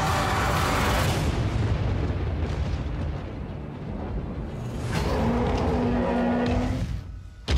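Film-trailer score and sound design: a heavy boom in the first second that dies into a low rumble. A held chord then swells about five seconds in and falls away near the end.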